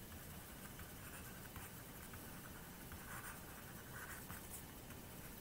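Faint scratching of a stylus writing on a pen tablet, in short irregular strokes.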